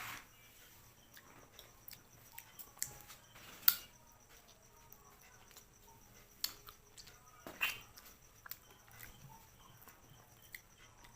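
Close-miked eating sounds from someone eating crab curry and fish-head curry with rice: scattered wet mouth clicks and small cracks while chewing, with a few louder sharp cracks along the way.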